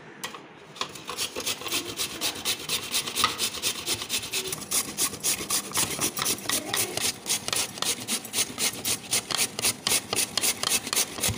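Raw peeled potato being grated by hand on a stainless steel box grater: quick, even rasping strokes, about four a second, starting about a second in.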